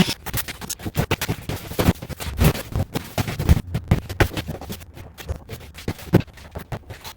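Rapid, irregular knocks, clicks and scrapes from hands-on work, thinning out over the last second or two.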